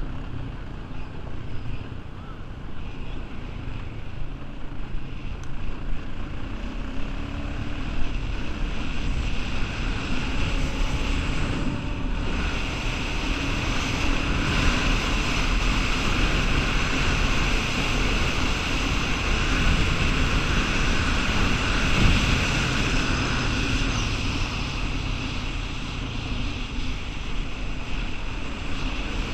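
Honda 420 ATV's single-cylinder four-stroke engine running steadily under way, with wind buffeting the microphone. It grows a little louder through the middle.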